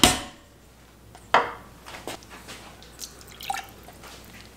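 Thick potato-and-pasta stew simmering in a stainless steel pot, giving a few separate wet plops a second or so apart. A sharp knock at the start is the wooden spoon against the pot before it is laid down.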